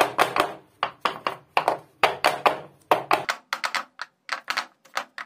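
A square metal cake tin full of batter knocked repeatedly against the countertop, a quick run of sharp knocks about two to three a second that gets faster partway through, settling the batter so it lies level.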